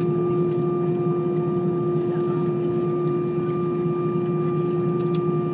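Steady cabin hum of an Airbus A320 taxiing, with a constant mid-pitched tone and fainter higher tones over a dense low drone.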